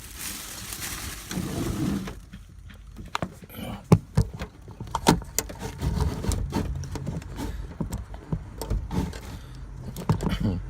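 Handling noise as a camera is repositioned: about two seconds of rustling on the microphone, then scattered clicks and knocks of things being handled.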